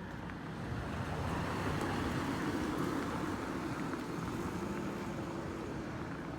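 A road vehicle passing, its rushing noise swelling over a couple of seconds and then fading, over steady street background noise.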